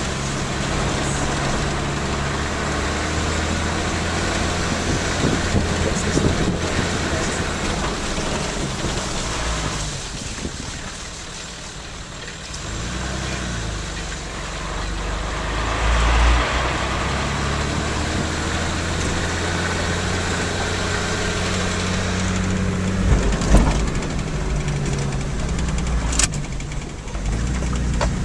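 Car engine running as the car drives slowly, its note rising and falling now and then, heard from inside the car. Near the end there are a couple of sharp knocks.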